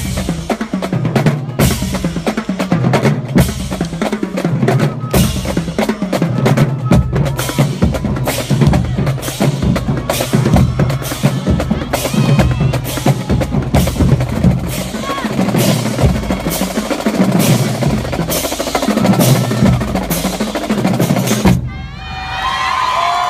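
Marching drumline playing a cadence: snare drums with rolls over bass drum beats, dense and loud. The drumming cuts off about 21 seconds in, and voices follow.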